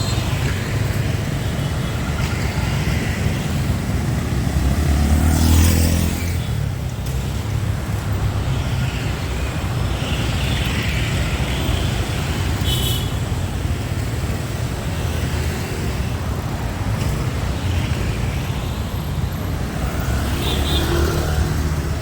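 Busy city street traffic: a steady rumble of passing motor vehicles, with one passing close and louder about five seconds in. Brief high beeps come near the middle and near the end.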